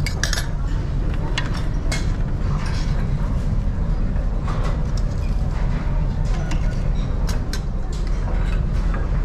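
Buffet dining-room clatter aboard a ferry: metal serving tongs and dishes clicking and clinking at irregular moments over the ship's steady low rumble.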